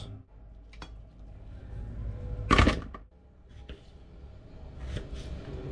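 Kitchen knife cutting through raw potatoes and knocking on a plastic cutting board, with one louder knock about two and a half seconds in and a few light taps near the end.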